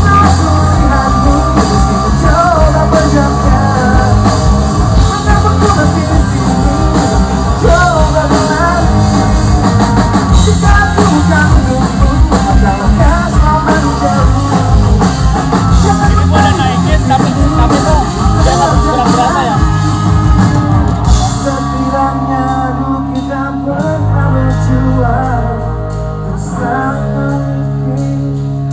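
Rock band playing: a male voice singing in Indonesian over electric guitar, bass and drums. About 21 seconds in, the drums drop away and the music thins to held guitar chords under the singing.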